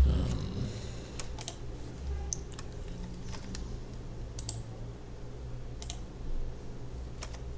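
Computer keyboard keys and mouse buttons clicking now and then, about ten short clicks with pauses between them, over a low steady hum.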